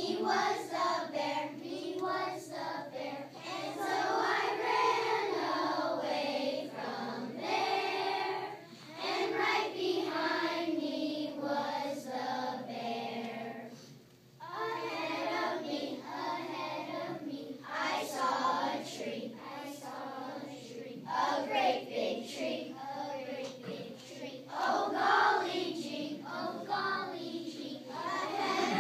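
A large group of young children singing together as a choir, phrase after phrase, with a short break between phrases about halfway through.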